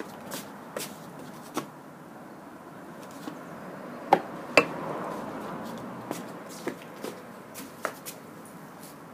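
Large hollow plastic chess pieces being lifted and set down on a vinyl mat, with two sharp clacks a little over four seconds in as one piece is taken and another put in its place. Lighter scattered knocks and sandalled footsteps on wooden decking come before and after.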